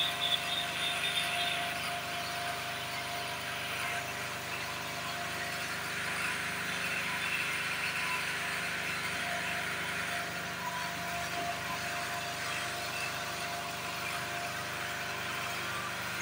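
A steady mechanical hum with a few held tones, engine-like, running without a break.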